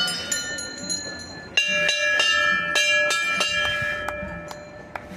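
Brass temple bells being struck repeatedly, each ringing on with several long, steady tones. A loud strike comes at the start and another about a second and a half in, with quicker lighter strikes in between, and the ringing slowly fades.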